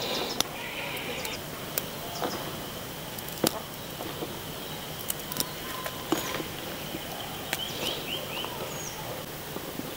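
Green chillies being destemmed by hand over a steel tray: scattered small snaps and clicks at irregular times as stems are broken off, over a steady high insect drone and a few short bird chirps.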